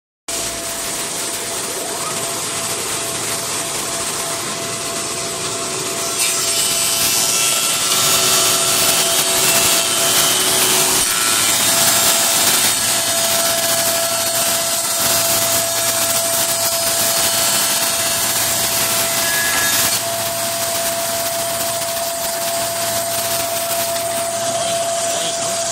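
Four-side planer (wood moulder) running with a steady whine from its spinning cutter heads. From about 6 s to 20 s it is louder and hissier as a board is fed through and planed, chips flying off the cutters, then it drops back to the lighter running sound.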